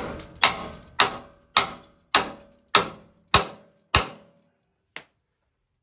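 Eight evenly spaced hammer blows, a little under two a second, each one sharp and quickly fading, followed by a single lighter knock near the end.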